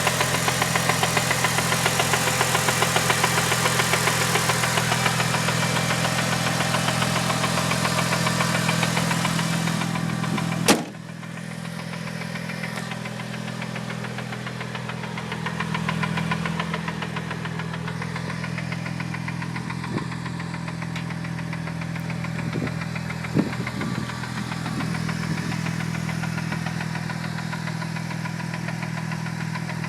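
Mitsubishi Lancer Evolution VIII's turbocharged 2.0-litre four-cylinder idling with a fast, even knocking, which the seller puts down to the clutch release bearing. A sharp click comes about a third of the way in, after which the engine runs quieter.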